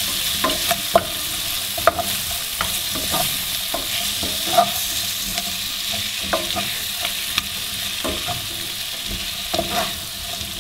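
Chopped bell peppers, onion and garlic sizzling in oil in a nonstick frying pan, stirred with a wooden spatula that clicks and scrapes against the pan at irregular moments.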